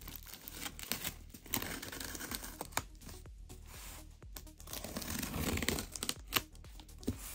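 Clear plastic stretch wrap on a cardboard box being picked at and torn open by hand, with crinkling, scratching and small clicks. The tearing and rustling are loudest about five to six seconds in.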